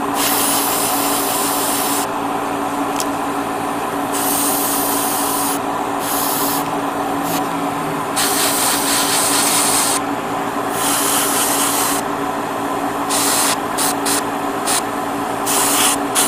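Airbrush spraying paint in bursts of hiss, the first ones one to two seconds long, then several short quick puffs near the end, over a steady motor hum.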